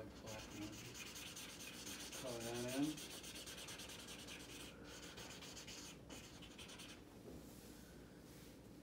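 Felt-tip marker scribbling rapidly back and forth on paper, filling in a solid black area, with a short pitched sound that bends up and down about two and a half seconds in. The scribbling stops about seven seconds in.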